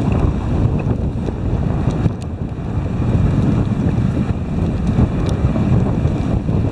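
Wind buffeting the microphone of a camera riding on a moving dog sled, a loud uneven low noise, mixed with the sled running over the packed snow trail.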